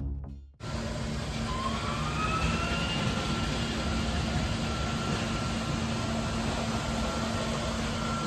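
Kärcher KIRA B 200 autonomous floor scrubber-dryer running: steady motor and suction noise with a low hum, and a whine that rises over the first couple of seconds and then holds steady. Music cuts off in the first half second.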